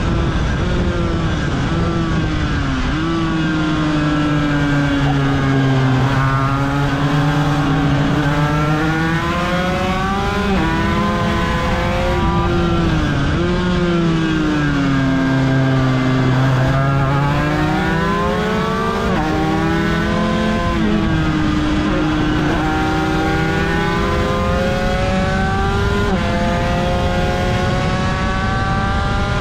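1995 Aprilia RS250 two-stroke V-twin racing engine heard onboard at full race pace. It revs up in repeated rising runs that break off with short drops in pitch as it shifts up through the gears, and it falls away in longer dips as the bike slows for corners.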